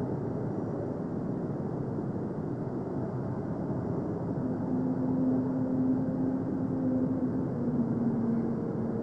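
A steady low droning rumble, with a held tone joining it about four and a half seconds in and stepping slightly in pitch.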